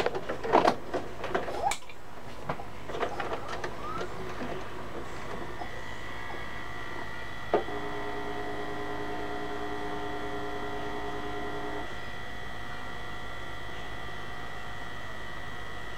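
VCR taking a VHS cassette: a run of plastic clicks and clunks as the tape is loaded, then a click as play engages and the transport mechanism whirs steadily for about four seconds while it threads the tape. A faint steady high tone and hum carry on after the whir stops.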